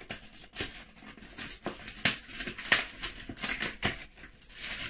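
Baking paper crinkling and crackling as it is handled and pulled out of its cardboard box, in irregular sharp crackles.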